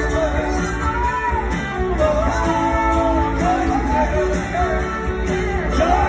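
Live rock band playing, with a lead vocal over electric guitars, keyboards and drums, heard from the audience in a theatre.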